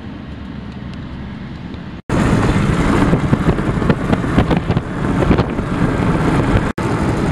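Car in motion heard from inside the cabin: a steady engine and road hum at first, then, after an abrupt cut about two seconds in, much louder rushing of wind and tyres at open-road speed with gusts buffeting the microphone. A second brief dropout comes near the end.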